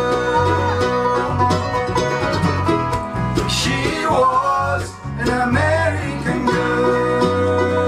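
Live acoustic bluegrass band playing: banjo, mandolin, acoustic guitar and upright bass, with a steadily stepping bass line and sung vocals at times.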